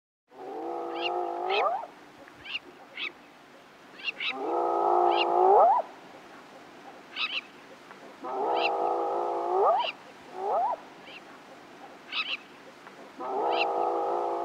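Hyena calling: four long calls about four seconds apart, each a held note that sweeps upward at the end, with one shorter rising call between the last two. Short high chirps come between the calls.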